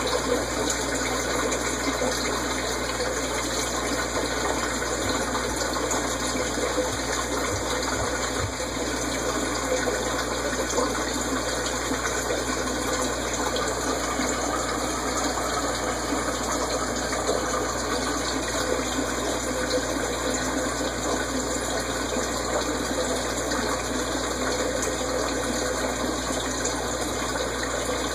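Steady rush of moving water in an aquarium: the constant splashing and circulation of the tank's water, unchanging throughout.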